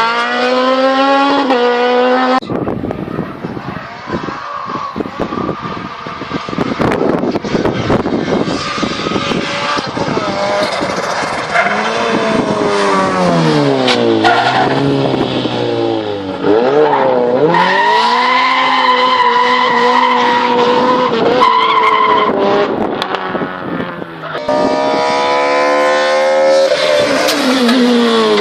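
Hillclimb race car engine revving hard, its pitch climbing through the gears, dipping and rising again several times in the middle as it slows and accelerates, then climbing steeply once more near the end.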